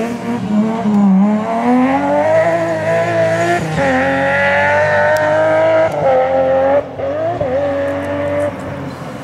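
BMW M3 E36 rally car engine revving hard as the car accelerates away, the pitch climbing through the gears with a short dip at each shift. The engine note drops sharply twice, about six and seven seconds in, as the driver lifts off, and runs quieter and steadier after that as the car moves off.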